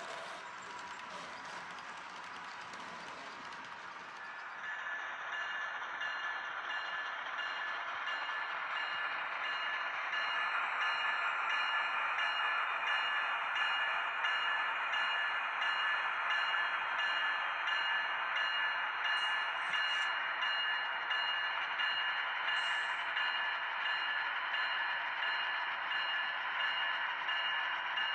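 HO scale model train running on track: a steady electric whir with faint, evenly spaced ticks. It grows louder over the first several seconds, then holds steady.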